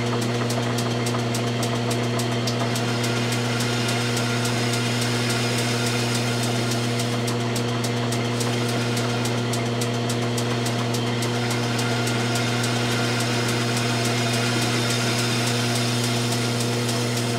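Logan metal lathe running at a steady speed with a rifle barrel spinning in its chuck, while a lathe tool takes light cuts on the muzzle to form a target crown. Its motor and drive make a steady hum, with a fine, fast ticking over it.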